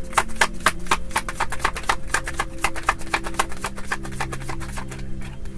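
A tarot deck being shuffled by hand: a rapid run of card clicks and slaps, about seven a second, thinning out near the end.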